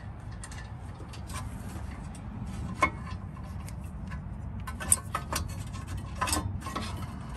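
Scattered light metallic clicks and clinks of a steel brake caliper bracket and its 17 mm bolts being handled and threaded in by hand, a handful of them sharper, over a low steady hum.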